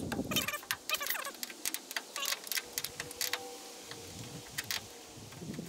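Ford F-250 tailgate support cable being worked off its metal mounting stud by hand: a scattered run of light metallic clicks and rattles.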